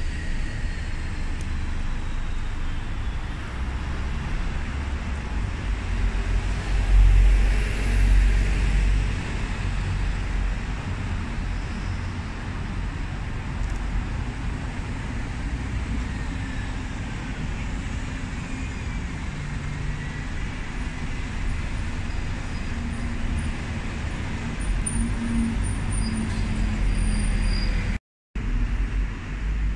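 City road traffic: a steady rumble of passing cars and tyre noise, swelling louder as a vehicle goes by about a quarter of the way in, with faint rising and falling engine tones.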